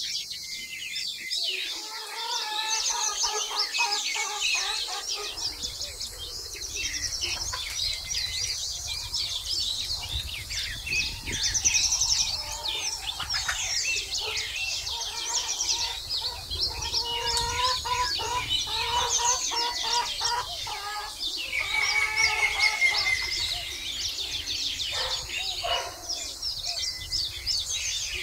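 Small songbirds chirping and trilling in a busy chorus, with chickens clucking among them.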